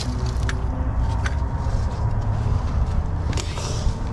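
A steady low rumble under a few light metal clicks as a threaded steel fitting is turned by hand into gas meter piping. A short soft hiss about three and a half seconds in.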